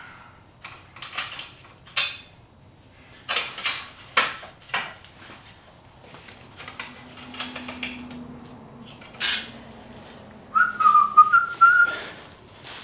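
Scattered metallic clinks and knocks of hand tools, bolts and parts being handled while stripping down a BMW E46 M3. About two-thirds of the way through comes a brief wavering high tone, and there is a louder knock near the end.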